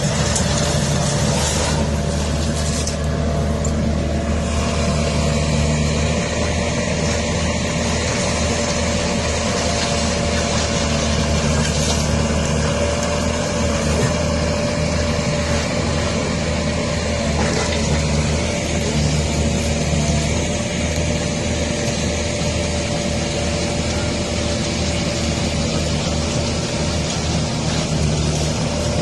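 Heavy farm machine's engine running steadily, with a constant whine over the low engine hum.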